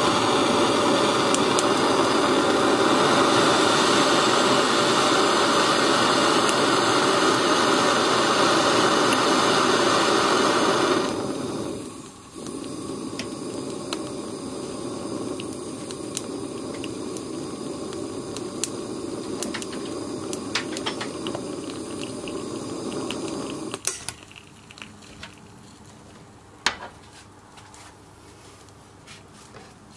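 Blow torch flame hissing steadily against an egg; about eleven seconds in the hiss turns much quieter, with scattered crackles from the scorching shell. A little before the end the torch goes off, leaving faint ticks and a couple of sharp pops from the hot egg.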